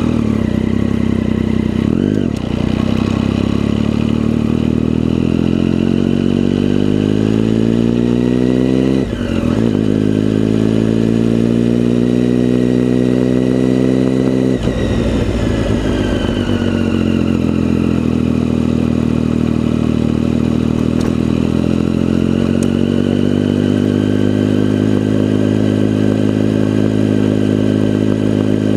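Motorcycle engine accelerating through the gears. Its pitch climbs, drops sharply at a gear change about two, nine and fifteen seconds in, then climbs again and levels off.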